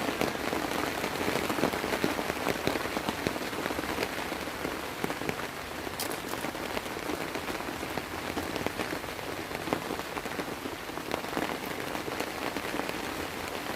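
Steady rain falling, a dense even hiss of many small drop hits, with one sharper drop impact about six seconds in.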